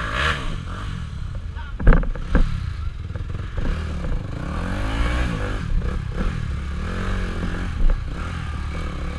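Motorcycle engine revving up and down while riding an enduro trail, with sharp knocks about two seconds in and again near the end.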